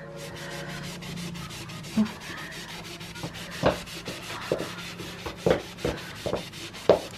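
Melamine foam sponge (magic eraser) scrubbing back and forth on a painted wall to rub off crayon marks, a quick, even run of rubbing strokes. A few sharper knocks come through now and then.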